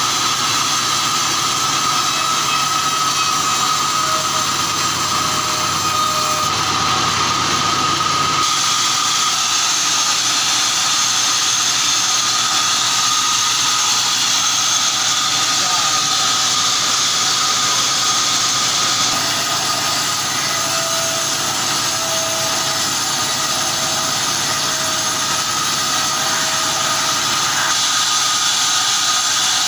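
Band sawmill running with a steady whine, sawing a log of kulim hardwood. The sound changes abruptly a few times.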